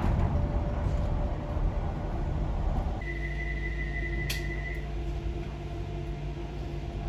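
Passenger train running, heard from inside the carriage as a low rumble. About three seconds in the sound changes abruptly to a steadier hum, with a high steady tone lasting under two seconds and a single click.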